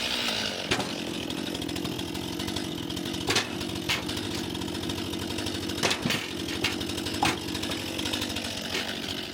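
Stihl MS 261 two-stroke chainsaw idling steadily, with several sharp knocks heard over it; the engine sound drops away at the very end.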